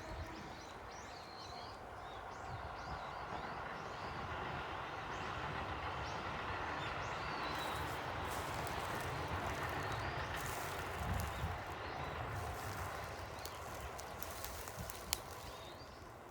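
Small birds chirping over a broad rushing noise of a passing vehicle, which builds to a peak midway and then fades. A few sharp clicks come near the end.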